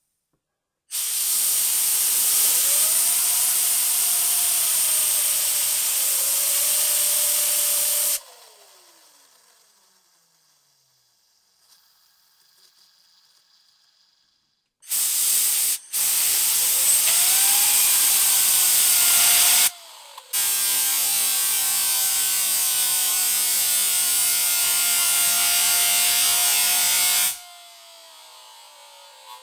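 Full ceramic ball bearing spun to high speed under a loud steady hiss, twice: each time its whine climbs quickly, holds, then slides down in pitch as the hiss cuts off and the bearing spins down.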